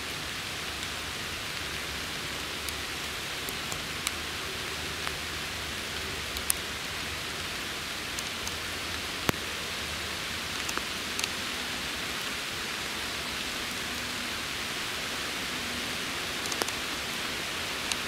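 Steady rain hissing in the woods, with scattered, irregular sharp ticks of drops.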